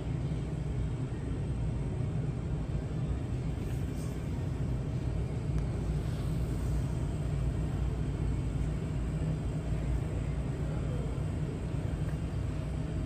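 Steady low rumble of a store's background noise, with a faint steady hum above it.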